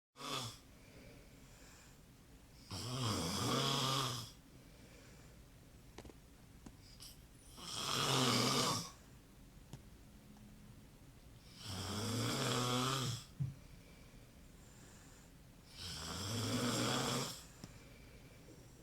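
Snoring: four long snores, each about a second and a half, coming every four to five seconds in a steady rhythm.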